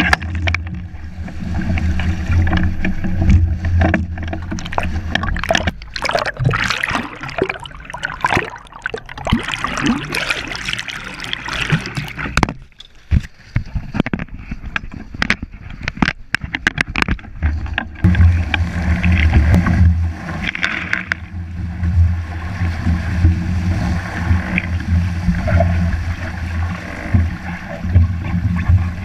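Water rushing and splashing against the hulls of a Pati Català sailing catamaran moving fast through choppy sea, with heavy wind rumble on the microphone. In the middle stretch the rumble gives way to a run of sharp splashes and spray, and it comes back near the end.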